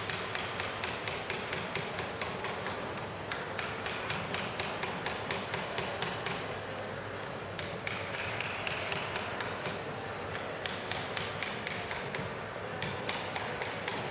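Mallet striking a wood-carving chisel as it cuts into wood: a steady run of quick taps, about four a second.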